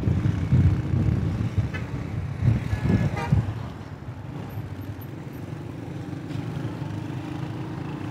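Road traffic: motor vehicle engine and road noise up close, easing about four seconds in to steadier, quieter street traffic.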